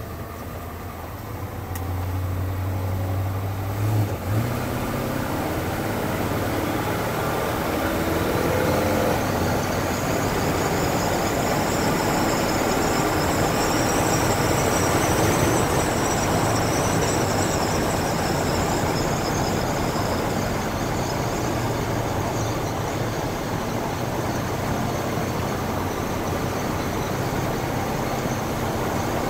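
1968 International Harvester 1100D pickup with its 345 V8 and automatic transmission, driving, heard from inside the cab. The engine note rises for a few seconds, then settles into a steady mix of engine, road and wind noise. A single brief knock sounds about four seconds in.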